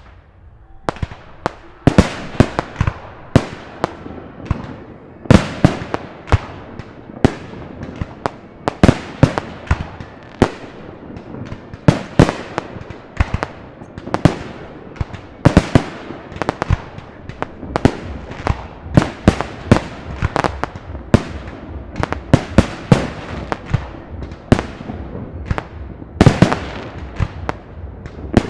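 Park fireworks display: a rapid string of shell bursts, several loud bangs a second starting about a second in, each trailing off in crackle and echo over a continuous rumble of launches and bursts.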